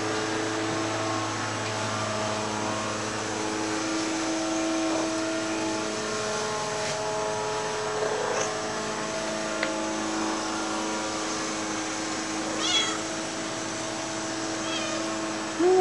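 Grey tabby domestic cat meowing: a few short high calls in the last few seconds and a louder, falling meow right at the end, over a steady background hum.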